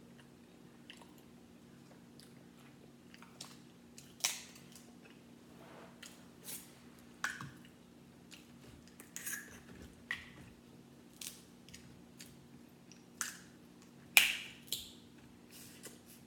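Crab legs being broken open by hand and eaten: scattered sharp cracks and clicks of shell at irregular times, with chewing. The loudest crack comes near the end.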